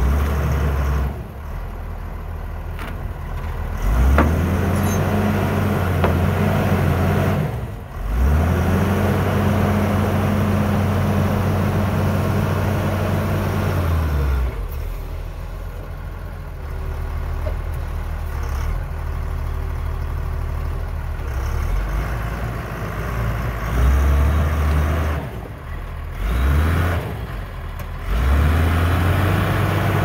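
CASE 1150E crawler dozer's diesel engine working as it pushes up pine stumps, its steady note swelling under load and easing off several times as the blade bears on and backs off.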